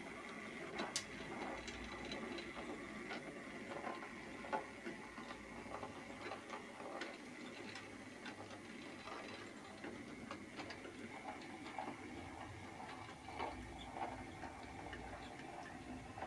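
H0e-scale model train, a Posch Modell C50 narrow-gauge diesel locomotive pulling small metal coaches, running slowly on the track: irregular light clicking and ticking of the wheels over the rails and rail joints over a faint steady motor whine.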